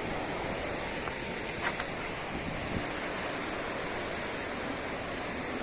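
Steady rushing of a flooded mountain river: an even wash of water noise with no let-up.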